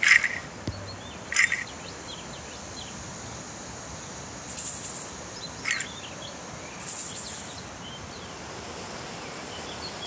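A rattle of dried seed pods strung on a cord, shaken about five times in short bursts. Some shakes are sharp, others a softer, longer hiss. Faint bird chirps behind.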